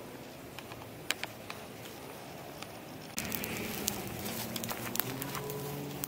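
Small open fire of dry twigs and leaves crackling, with sharp pops, starting abruptly about halfway in. Before that there is only faint outdoor background with a few light ticks.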